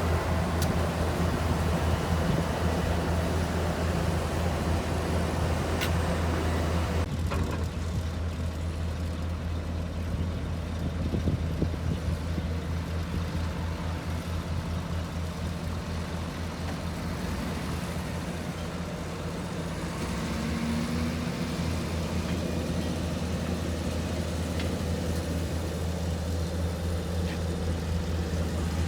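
Road traffic: vehicle engines running with a steady low rumble and a wash of road noise.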